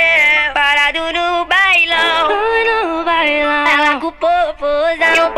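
Sped-up Brazilian funk song: a high, sped-up vocal melody of held and sliding notes over the backing track.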